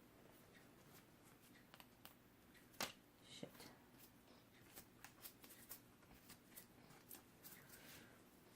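Faint, scattered clicks and light handling noises from small objects being moved about on a work table, with one sharper click about three seconds in.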